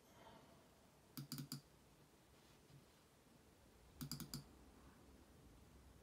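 Computer mouse clicking in two quick bursts of about four sharp clicks each, a little over a second in and again about four seconds in, opening a folder and then a file on screen.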